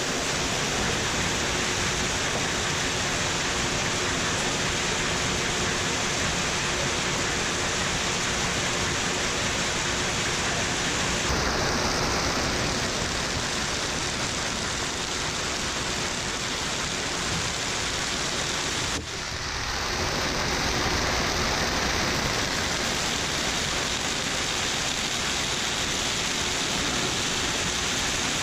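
Microwave popcorn bag-making machine running: a steady, dense mechanical noise with no clear rhythm, briefly cutting out and resuming about two-thirds of the way through.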